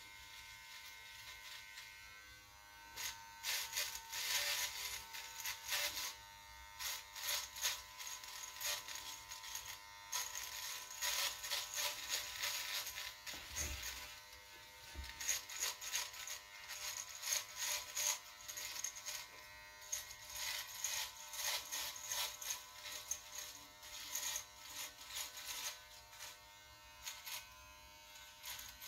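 Electric hair trimmer buzzing steadily as it edges a beard along the cheek and neck. From about three seconds in, the steady buzz is broken by many short, scratchy strokes as the blade cuts through the whiskers.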